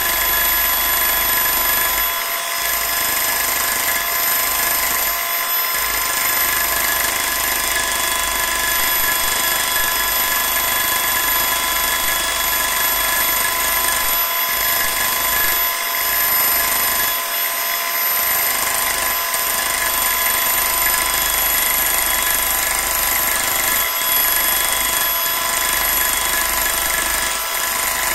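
Biax electric power scraper running steadily, its carbide blade stroking lightly over a surface plate to take down the high spots. A continuous buzzing whine made of several fixed tones.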